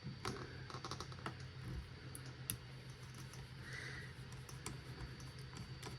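Faint, irregular small clicks and taps of a screwdriver and small metal parts being handled while removing screws inside a compact desktop PC, with a cluster of quick clicks in the first second or so.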